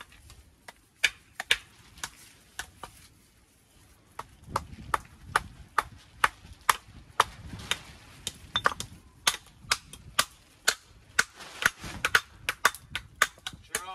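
Hammer striking stone in sharp knocks as a walling stone is dressed to shape. There are a few knocks at first, then from about four seconds in a steady run of two to three a second.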